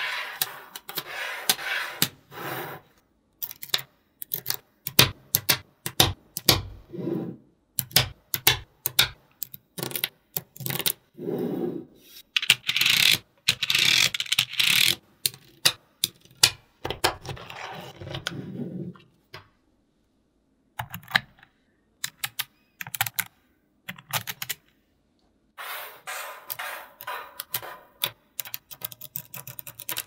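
Small magnetic balls clicking and snapping together: sharp single clicks and quick clattering runs, broken by a couple of brief pauses.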